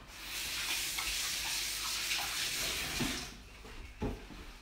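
Water running from a kitchen tap in a steady hiss for about three seconds, then shut off, followed by a couple of soft knocks.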